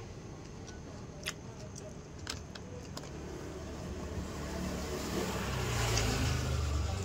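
A motor vehicle driving past close by, its engine sound building to a peak about six seconds in. A couple of sharp clicks come about one and two seconds in.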